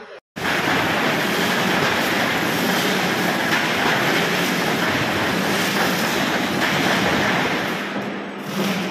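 Sheet-metal roll-forming machine running: a loud, steady mechanical rumble and rattle with a low hum under it.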